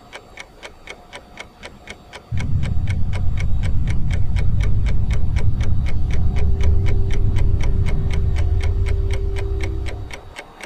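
Steady, even clock-like ticking in a tense film score. A deep low drone comes in about two seconds in, a held tone joins midway, and both fade near the end.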